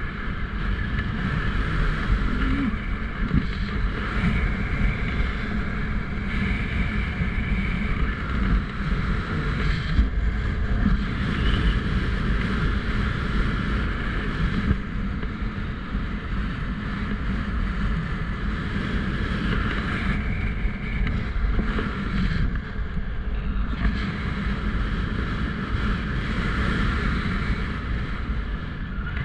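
Strong wind rushing past and buffeting the microphone in paraglider flight, a steady, uneven rumble that goes on without a break.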